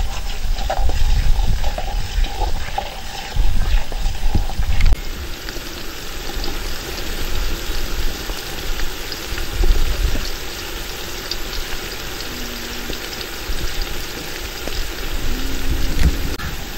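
Sliced shallots frying in hot oil in a pot, a steady sizzle with bubbling. Low rumbling thumps sit under it for the first few seconds.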